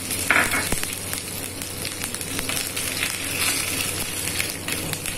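Curry leaves and mustard seeds sizzling and crackling in hot oil in a small pan, the tempering (tadka) being fried. There is a louder burst of crackling just after the start.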